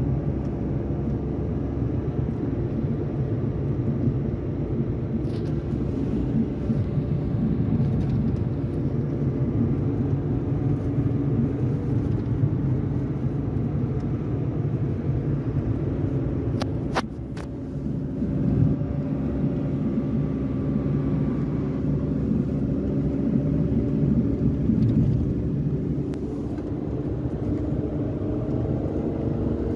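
A car being driven: steady road and engine rumble from the running car, recorded to capture a knocking from under the car that the owner has not managed to trace.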